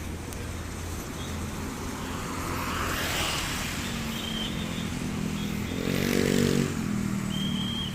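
Road traffic: an engine runs steadily while vehicles pass, the loudest passes about three seconds in and again around six seconds.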